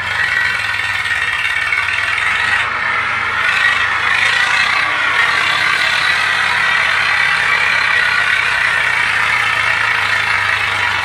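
Swaraj 744 XT tractor's three-cylinder diesel engine running hard and steadily under heavy load as the tractor works through loose dune sand.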